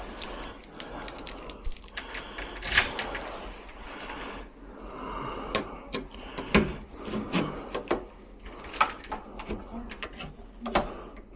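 Keys and a door lock's cylinder and latch mechanism being worked to test the repaired lock: a series of sharp metallic clicks and knocks, coming thicker in the second half.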